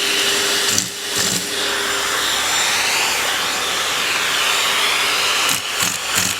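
Vacuum cleaner running steadily, its whine slowly shifting in pitch as the airflow changes, with brief knocks about a second in and again near the end.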